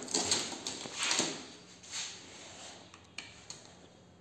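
Several short handling noises, rustling and scraping, in the first two seconds, then fading to quiet room sound.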